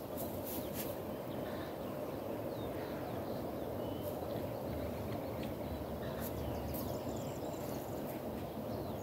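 Steady outdoor background noise with faint, brief rustles of dry hay as a cat shifts in a hay pile, and a few faint high chirps.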